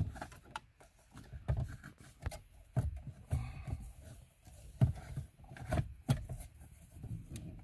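Irregular clicks, taps and knocks of hands handling a car radio and the plastic dash trim around it while test-fitting it into the dash opening.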